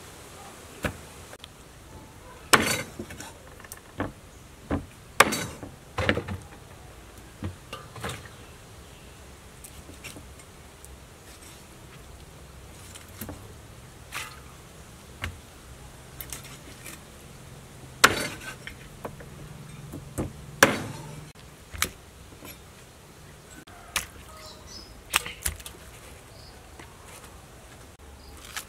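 Meat cleaver chopping a whole raw duck into pieces on a wooden chopping block: irregular sharp chops a second or two apart, a few of them much harder than the rest.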